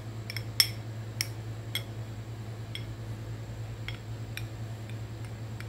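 Metal spoon clinking and tapping against a drinking glass as scoops of ice cream are put into soda: a scattered run of light clinks, the sharpest about half a second in. A steady low hum runs underneath.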